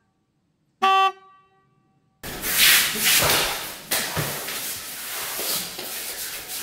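One short horn-like toot, a sound effect, just under a second in. After about two seconds of silence comes the noise of a person falling onto a hard floor: a sharp thud about four seconds in, with rustling and shuffling as he gets back up.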